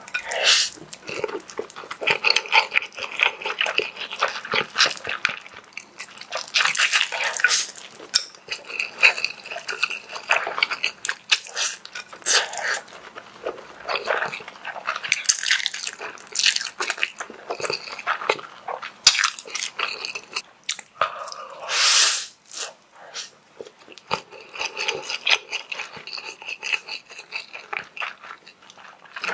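Close-miked eating sounds of a man slurping instant noodles: several loud slurps about a second long, with wet chewing and lip smacks in between.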